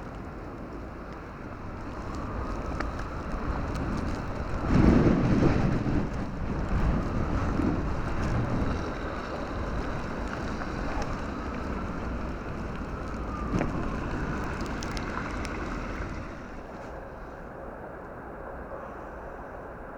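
A vehicle passing on a snow-covered street, its noise swelling to a peak about five seconds in and then fading away over the next ten seconds.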